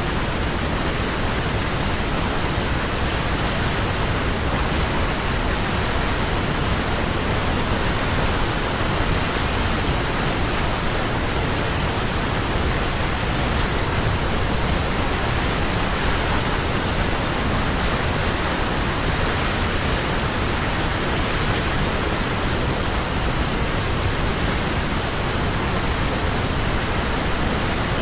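Waterfall: water falling and rushing in a steady, unbroken roar of noise that neither rises nor falls.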